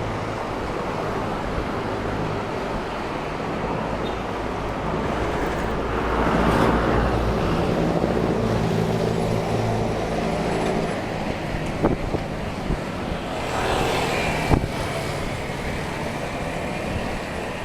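Street traffic with steady road noise. A motor vehicle's engine passes close, growing loud about six seconds in and fading after about five seconds, and another vehicle goes by near the end, with a couple of sharp clicks.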